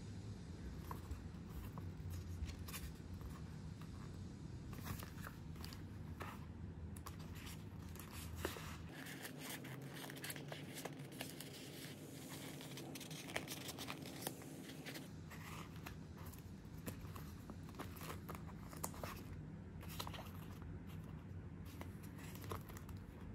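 Paper pages flipping and plastic wrapping crinkling as a booklet and packaged items are handled, with scattered soft clicks and rustles.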